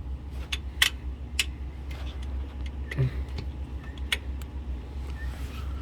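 Hand tools clinking: a few light, sharp clicks at irregular intervals over a steady low hum.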